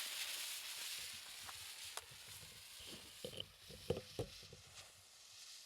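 Lit fuse of a consumer firework rocket sizzling faintly for about a second and a half, then scattered small crackles and ticks as it burns down toward ignition.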